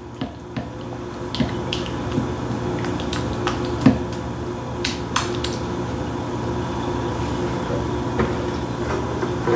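Scattered light clicks and taps of kitchenware, about seven or eight, mostly in the first half, over a steady low hum.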